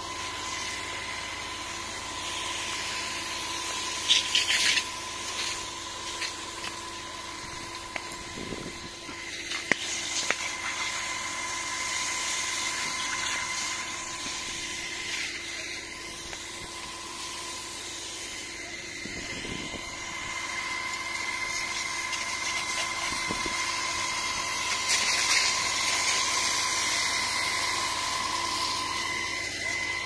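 Water from a fire hose hissing onto burning dry reeds and grass, raising steam, over the steady hum and whine of a running fire-engine pump. A few louder sputtering bursts about four seconds in, around ten seconds, and again about twenty-five seconds in.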